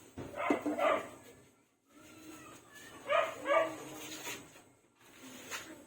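A dog barking in two short pairs of barks, about half a second in and again about three seconds in.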